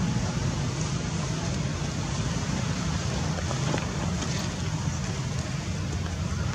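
Steady outdoor background rumble and hiss, with no distinct event standing out.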